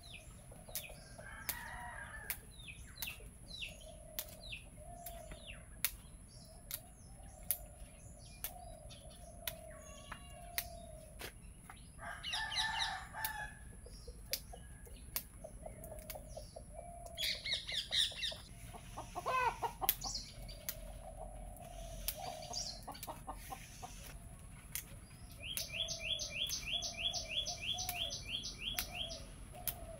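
Yard birds and chickens calling and chirping, with a run of rapid ticking calls near the end. Through it come many sharp snaps as cauliflower leaves and stalks are broken off by hand.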